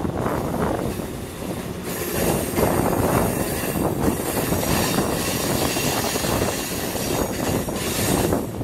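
A train rolling on the rails, its wheels clattering and squealing. A high hiss comes in about two seconds in and drops away near the end.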